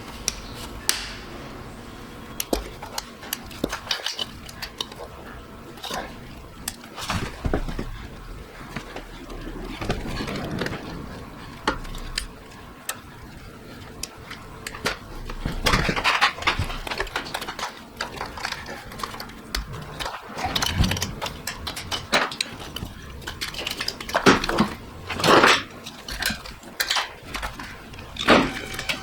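Metal hand tools and engine parts clinking and clattering during engine work, with scattered irregular knocks and clicks.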